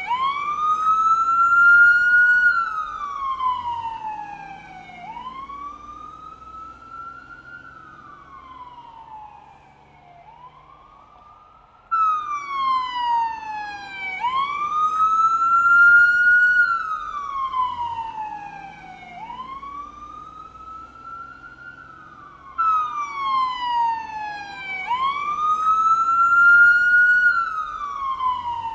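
Police car siren in wail mode: a slow rise and fall in pitch, repeating about every four to five seconds. It grows fainter over a few cycles and then cuts back in loud, twice.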